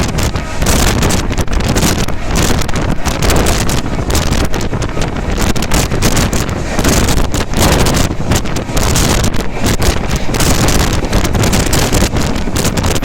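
Express train running at speed: loud, steady wind rushing over the microphone over the rumble of the wheels on the rails.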